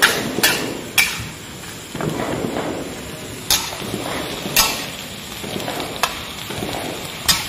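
Metal spatula stir-frying bottle gourd pieces in a wok: a steady scraping and rustling of the vegetables with a frying sizzle, broken by about seven sharp clanks of the spatula against the wok, spaced unevenly.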